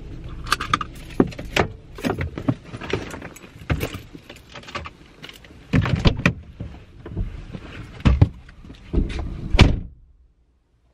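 Rustling, clicks and knocks as someone gathers things and climbs out of a Volkswagen car, ending with a heavy thud of the car door shutting about nine and a half seconds in.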